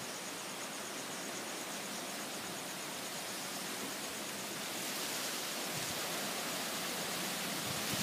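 Strong wind blowing through trees: a steady hiss that grows louder about five seconds in.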